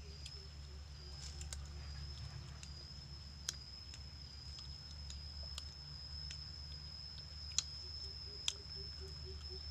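Quiet rural outdoor ambience: a steady high-pitched insect drone with a low hum beneath, broken by a few sharp clicks.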